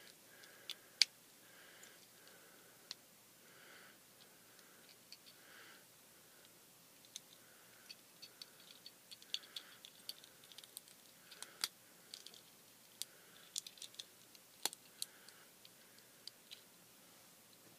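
Small plastic parts of a Transformers Legends Goldbug figure clicking and snapping as they are twisted and folded by hand during its transformation: scattered light clicks, coming much more often in the second half.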